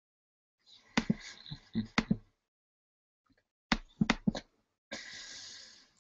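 Sharp clicks and knocks in two quick clusters, about a second in and again near four seconds, followed by a hiss lasting about a second near the end.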